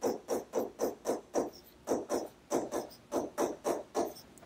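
Handwriting pen strokes: quick scratchy rubs of a pen tip across a writing surface, about four a second, as a word is written out.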